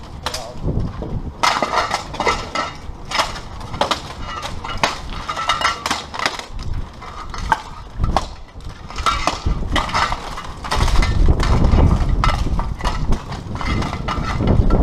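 Steel plate armour clanking and weapons striking armour and shields in full-contact armoured sparring: a rapid, irregular clatter of metallic hits and scrapes. About eleven seconds in, a louder low rumble joins for a few seconds.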